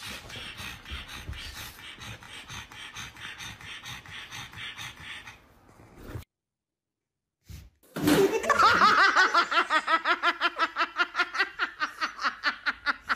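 Soft, faint sound for the first half, a short break of silence, then a person laughing hard in a rapid, evenly repeated run of 'ha' sounds that is the loudest part.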